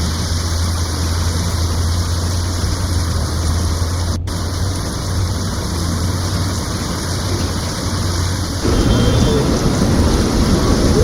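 Heavy rain falling: a steady hiss of rain with a low hum underneath. About three-quarters of the way in, the sound changes abruptly to a louder, rougher rush.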